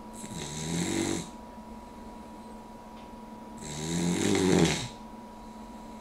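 A sleeping puggle snoring, two long snores about three seconds apart, the second louder. She snores only when her head is propped up on the arm of a chair.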